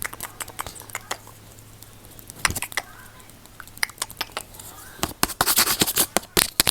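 Close-miked ASMR trigger sounds: scattered sharp clicks and taps, then a dense, rapid flurry of crackly clicks about five seconds in.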